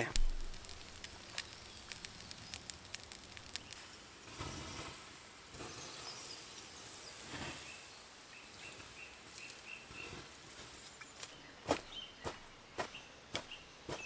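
Campfire embers doused with water poured from a bottle, hissing softly twice, then a few sharp stamps of boots on the ground near the end as the fire is put out.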